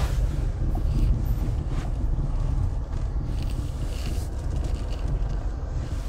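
Car driving slowly over grass: a steady low rumble of engine and tyres.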